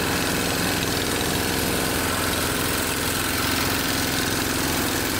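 Two-wheel walking tractor (motoculteur) engine running steadily at an even speed as it drives along a dirt track.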